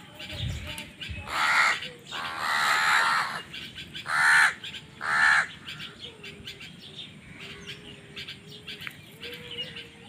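A flock of house crows cawing: four loud caws in the first six seconds or so, the second one drawn out longer, then only softer, scattered calling from the other crows.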